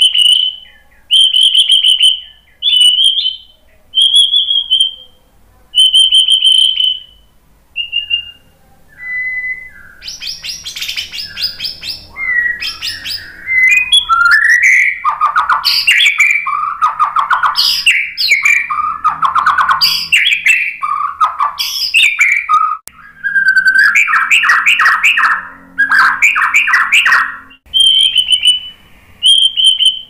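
White-rumped shama singing. It opens with a run of clear whistled notes, about one a second. About ten seconds in it breaks into a fast, varied song of buzzy trills, chattering phrases and quick stuttered note runs, then returns to clear whistles near the end.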